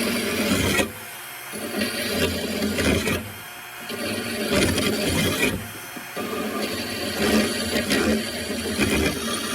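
Electric drill spinning a blade-sharpener attachment that grinds against a steel lawnmower blade, taking metal off. The grinding comes in uneven surges, easing off and picking up again several times.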